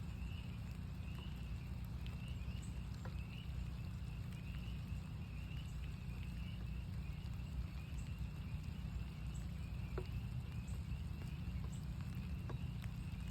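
A chorus of northern spring peepers: many high, short peeps overlapping into a steady trilling band. Rain falls alongside, with scattered drops ticking sharply.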